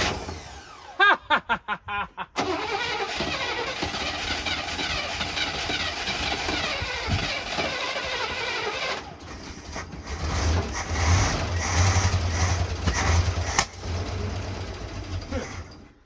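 Old Chevy Blazer engine cranking and sputtering, then catching on fuel primed into the carburetor and running roughly. It runs louder for a few seconds about ten seconds in, then stops just before the end.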